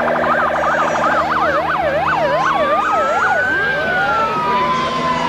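Electronic vehicle sirens. A rapid yelp in the first second slows into a wavering wail of about two cycles a second, then gives way to long rising-and-falling wails, two of them overlapping near the end.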